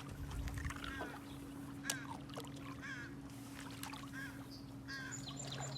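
Several short bird calls, each bending in pitch, over a steady low hum.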